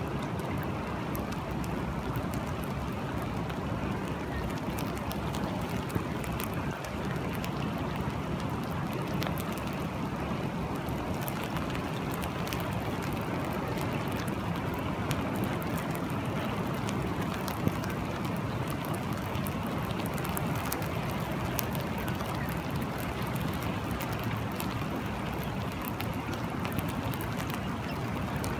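Steady rain, a constant hiss dotted with many small sharp ticks of individual drops.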